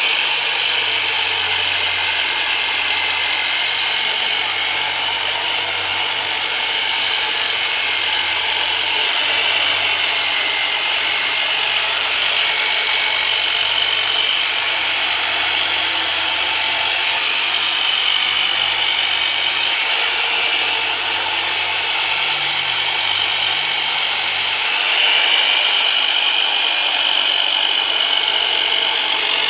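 Turbonator electric deep-tissue massager running steadily, a loud motor buzz whose pitch wavers a little, going slightly higher and louder about 25 seconds in.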